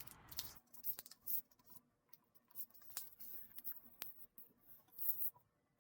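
A sheet of letter paper being folded and creased by hand: soft rustling, brief crisp swishes and a few small sharp clicks.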